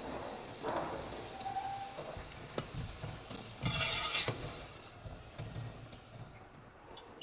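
Small handling sounds: scattered light clicks and knocks, with a brief hissing rush about three and a half seconds in.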